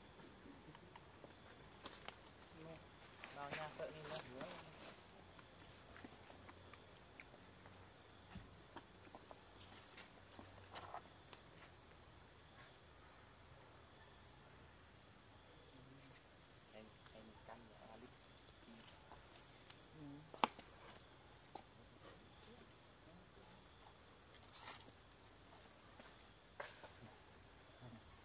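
Insects droning in a steady, high-pitched tone, with a few faint clicks and one sharper click about twenty seconds in.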